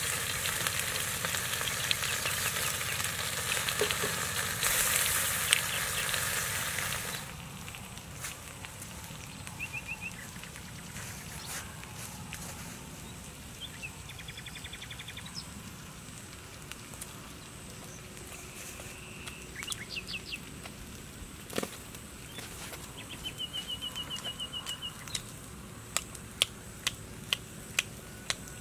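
Fish sizzling loudly on a hot stone over a charcoal fire, cutting off about seven seconds in. Quieter outdoor ambience follows, with short rapid bird trills now and then and a run of sharp clicks near the end.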